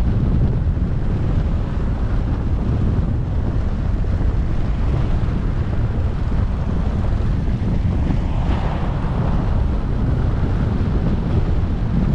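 Steady low rumble of wind buffeting the microphone of a camera on a moving car, mixed with road noise. A brief swell of hiss rises about eight seconds in.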